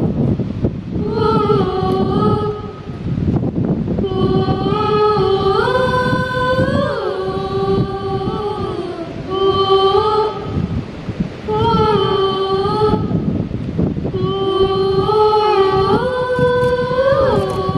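Girls singing a slow, wordless melody in long held notes, phrase by phrase with short breaks, through a microphone and small portable speaker, between verses of a patriotic Hindi song.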